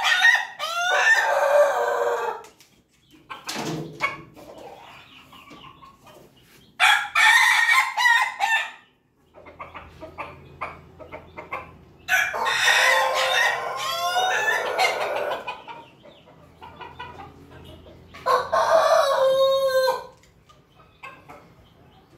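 Roosters of the pelung, ketawa and bangkok crossbred lines crowing: four long crows several seconds apart, the third the longest at nearly four seconds.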